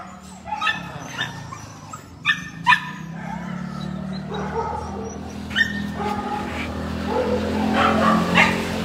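Several crated dogs barking and yipping, with short sharp barks scattered through, over a steady low hum that grows slightly louder in the second half.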